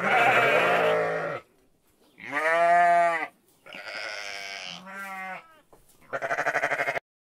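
Sheep bleating: four separate calls of one to two seconds each, the last one quavering. The sound cuts off suddenly near the end.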